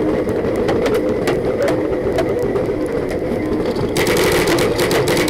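Paintball markers firing: scattered sharp pops, then about four seconds in a dense, rapid string of shots from a marker fired close by. A steady hum runs underneath.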